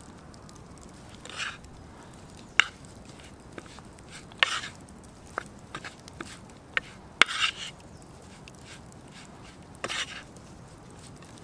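Food preparation: raw beef being coated in flour, with a few sharp clicks and knocks and short rustling scrapes, the loudest clicks about two and a half and seven seconds in.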